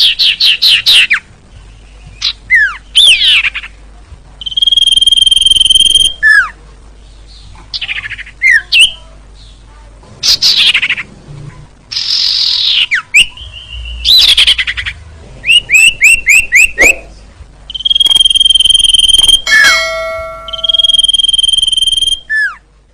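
Sirtu (cipoh) songbird calling in a lure recording: quick runs of falling, sweeping notes and chattering series, broken by long, steady, high whistled notes held for about a second and a half, three times.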